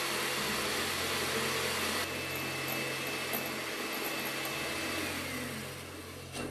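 Electric hand mixer running steadily, its twin wire beaters whipping egg whites into stiff foam; the motor's pitch shifts slightly about two seconds in.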